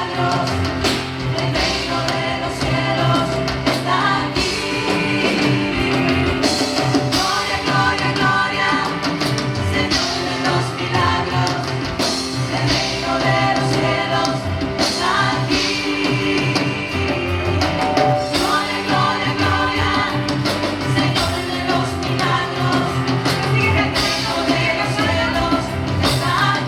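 Live worship music: a band playing a steady up-tempo song with singing over it.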